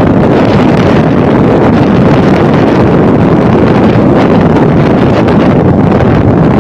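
Heavy wind buffeting the microphone of a camera carried on a riding motorbike, a dense steady rush, with the bike's running and road noise underneath.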